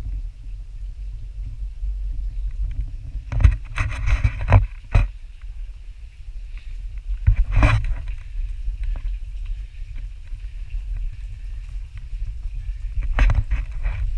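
Handling noise on a pole-held GoPro: a steady low rumble with scrapes and knocks of the pole and of hands and shoes on rock, in clusters a few seconds in, near eight seconds and again near the end.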